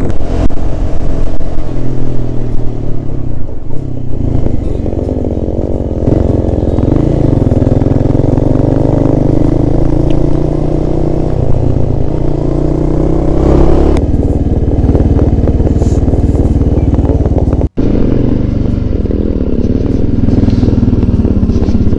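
Onboard sound of a single-cylinder dual-sport motorcycle engine under way, its note rising and falling with throttle and gear changes. The sound changes abruptly about six and fourteen seconds in, and briefly drops out near eighteen seconds.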